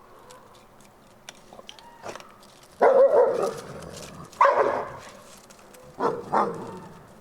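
Captive gray wolves vocalizing in four short, harsh outbursts, the first two about three and four and a half seconds in and the last two close together near the end, with faint whines in between.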